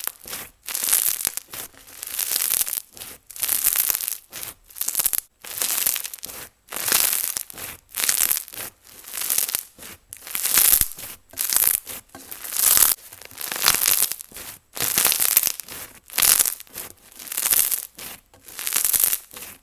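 Non-tacky clear-glue slushie slime being squeezed and folded by hand, crackling and popping bubbles in repeated bursts about once a second.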